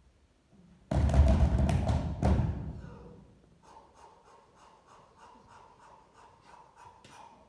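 Percussive stage soundtrack: a sudden loud booming hit about a second in that dies away over two seconds, followed by soft, even ticking at about four ticks a second over a faint held tone.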